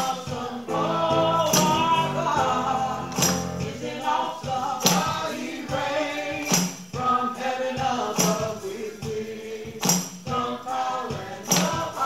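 A congregation singing a gospel song over sustained keyboard chords, with a tambourine struck about once every second and a half.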